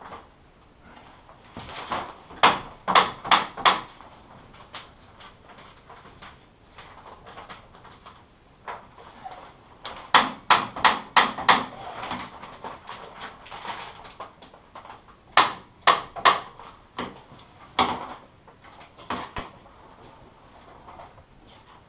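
Staple gun firing broad-backed staples through stretched horticultural polythene into a timber frame, in quick runs of three to six sharp shots with pauses between, as the sheet is fixed along the frame.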